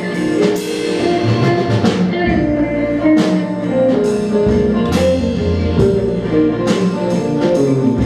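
Live acoustic string band playing an instrumental passage on banjo, guitar and upright bass: a run of plucked notes over a walking bass line, with no singing yet.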